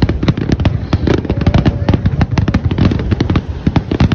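Aerial fireworks shells bursting in a dense, unbroken barrage, with many sharp bangs and crackles every second over a low rumble.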